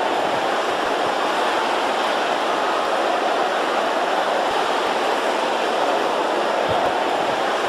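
A large congregation praying aloud all at once, many voices blending into a loud, steady wash with no single voice standing out.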